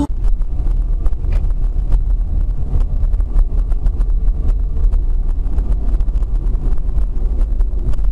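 A car driving, heard through a dash camera's microphone: a steady low rumble of engine and road noise, with many small crackling clicks.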